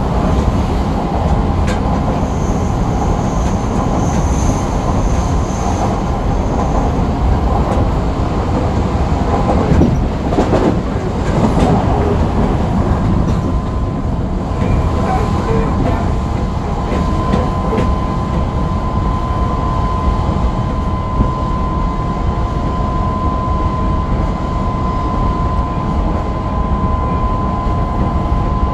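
Running noise inside a motor car of an Odakyu 3000-series (second-generation) electric train under way, fitted with a Mitsubishi IGBT-VVVF inverter and 6-pole induction motors: a steady rumble of wheels on rail with the clickety-clack of rail joints. A brief louder rush comes about ten seconds in, and a steady whine near 1 kHz comes in about halfway and holds.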